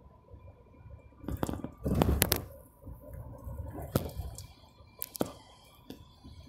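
Interior of a moving bus: a low rumble with a faint steady whine, broken by a cluster of clattering knocks about two seconds in and single sharp clicks near four and five seconds.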